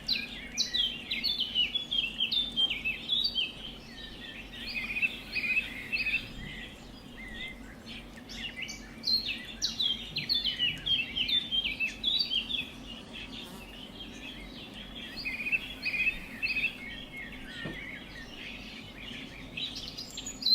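Pet budgerigar warbling and chattering: rapid strings of chirps in bursts, busiest in the first few seconds and again about halfway, sparser near the end, over a faint steady low hum.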